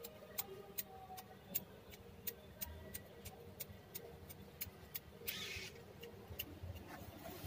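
Faint, evenly spaced ticking, about two ticks a second, with a brief hiss about five seconds in.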